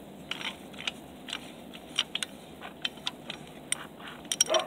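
Sharp metallic clicks at irregular intervals from a hand tool tightening the oil drain bolt on a Honda CRF70 engine, snugging it down on its crush washer. A quick cluster of clicks comes near the end.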